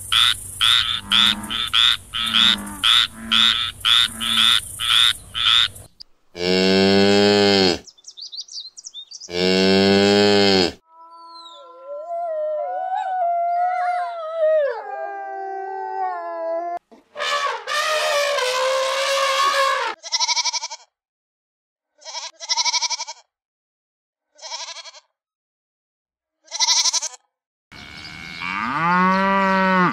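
A run of animal calls. First a frog croaks in a regular series, about two croaks a second. Then come two long pitched calls, a wolf howling in gliding tones, several short calls, and near the end a dairy cow mooing once, long and loud.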